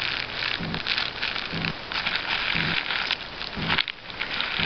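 Clear plastic bag crinkling and crackling around a squishy melon-bun toy as it is squeezed in the hand, over and over about once a second.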